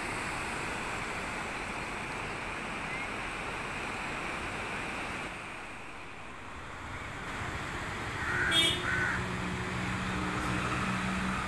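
Fast mountain river running over boulders and stones, a steady rushing hiss that dips briefly about halfway. Near the end a low steady hum comes in, and a bird calls twice in quick succession.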